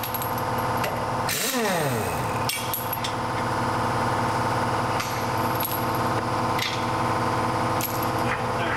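Pneumatic impact wrench spinning a lug nut off a truck-trailer wheel about a second and a half in, its air motor rising in pitch, then falling away. After it come a few sharp clanks of nuts and tools set down on the concrete floor, over a steady hum.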